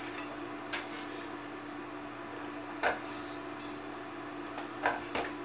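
A kitchen knife knocking on a cutting board while an onion is finished off and scraped into a bowl: four or five scattered sharp knocks, the loudest about three seconds in, over a steady low hum.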